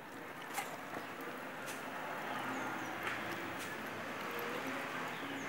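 Wet grated coconut squelching as it is squeezed by hand, coconut milk dripping and trickling into a clay pot, with a few sharp ticks.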